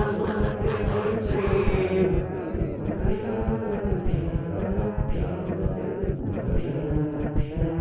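A cappella vocal music: several layered voices singing in chant-like harmony, over a beat of short, crisp ticks.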